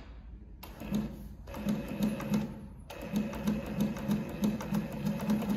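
Consew 146RB-1A-1 walking-foot zigzag industrial sewing machine running, with a rhythmic clatter of about three beats a second. It goes in short spurts at first, then runs steadily from about three seconds in, with the stitch setting at zero.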